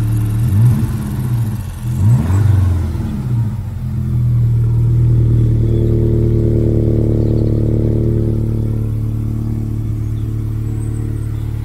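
VW Scirocco's four-cylinder petrol engine running unhealthily at the exhaust with a misfire. It is revved a few times in the first three seconds, then settles into a steady idle from about four seconds in. The misfire comes from low combustion on cylinder 3, which the AA technician put down to a failing coil pack.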